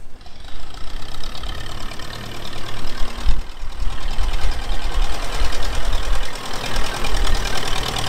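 Ferguson TE20 tractor's four-cylinder TVO engine running with a fast, even beat, getting louder about three seconds in.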